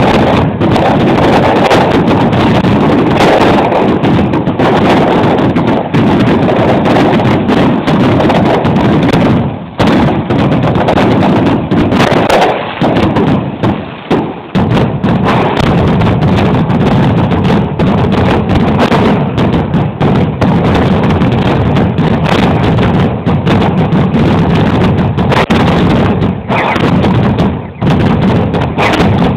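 Fireworks going off in a rapid, continuous barrage of bangs and crackle, the strokes crowding together with only brief lulls about ten, fourteen and twenty-seven seconds in.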